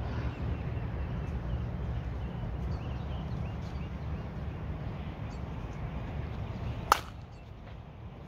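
A single sharp crack of a softball bat hitting a slowpitch softball, with a brief ring, near the end, over a steady low rumble.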